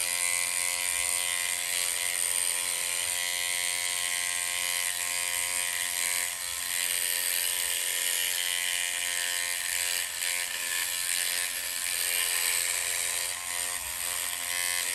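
Handheld electric dreadlock (interlocking) machine running steadily as it locks natural hair: an even motor hum with a buzzy mechanical rattle.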